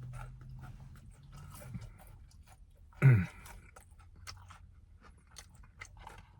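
Close-up chewing of crispy fried chicken strips, with small crunches and mouth clicks, and a low steady hum for the first two seconds. About three seconds in, a brief loud vocal sound falling in pitch, like a grunt.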